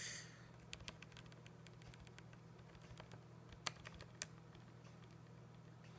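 Keys of a TI-83 Plus graphing calculator being pressed: soft, irregular clicks as a program line is keyed in, with a few sharper presses a little before and after the four-second mark. A faint low hum runs underneath.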